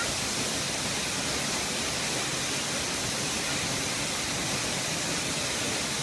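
Minoo Falls waterfall: a steady, even rush of falling water.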